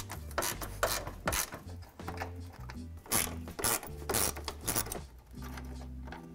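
Hand ratchet with a 10 mm socket clicking in short, irregular runs as the screws along the bottom of the bumper valance are backed out. Background music with a steady bass line underneath.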